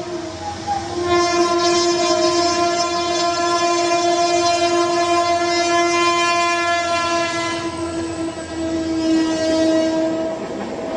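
Train horn blowing one long, steady blast. It briefly eases near the start, then sounds again about a second in and is held almost without a break, over the running noise of the train.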